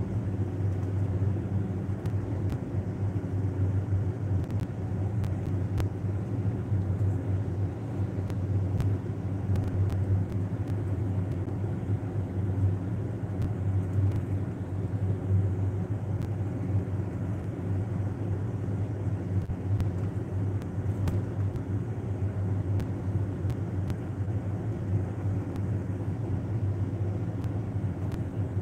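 A steady low hum or rumble that does not change, with faint scattered clicks over it.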